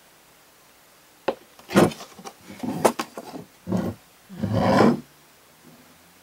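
Wooden board base of a craft piece handled and moved on a tabletop: a sharp knock about a second in, then several short scraping, rubbing noises, the longest near the end.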